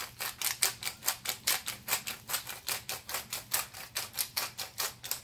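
Hand-twisted pepper mill grinding black pepper: a rapid, even run of dry clicks, about five or six a second.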